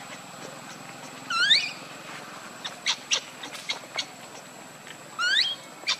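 Baby macaque crying: two short, rising, squealing calls about four seconds apart, with a few short sharp clicks in between.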